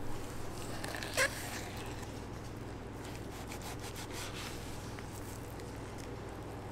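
A long knife slicing through a block of bluefin tuna on a plastic cutting board: soft cutting and scraping sounds, with one short sharp sound about a second in. A steady low hum sits underneath.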